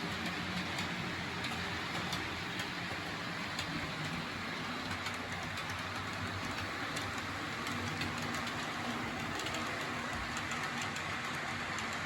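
Model railway train running on the layout's track: a steady rolling hiss and hum with light, irregular clicks of the wheels over rail joints.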